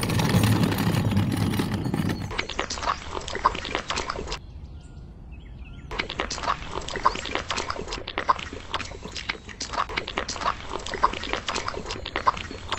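A loud rushing noise for about the first two seconds, then a miniature metal shovel scraping and patting wet cement: a busy run of small wet clicks and scrapes that pauses for about a second and a half in the middle.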